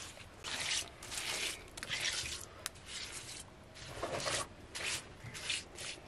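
Bare hands rubbing and pressing wet mud, smoothing and shaping a mud rim: a series of short rubbing strokes, about one a second.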